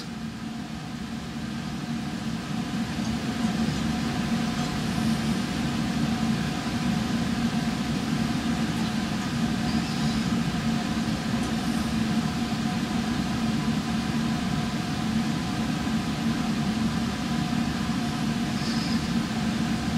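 Steady hum of a laboratory fume hood's ventilation fan: a low drone with several steady tones above it.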